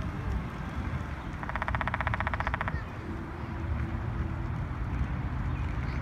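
A small woodpecker drumming: one fast, even roll of roughly fifteen to twenty strikes a second, lasting just over a second, starting about a second and a half in. A steady low rumble runs underneath.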